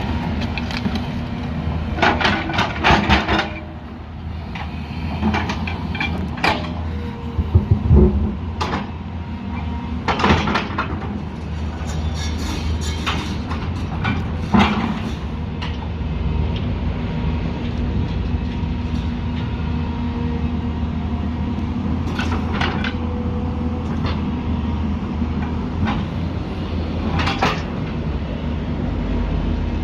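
Diesel excavator engine running steadily under load, with repeated short metallic clanks and knocks from the working machine, several of the loudest bunched in the first half.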